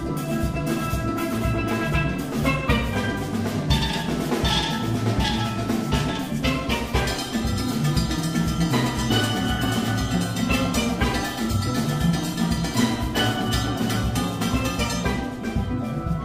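A steel orchestra playing steelpans in many parts, with the engine-room percussion (drum kit and congas) keeping a steady beat underneath.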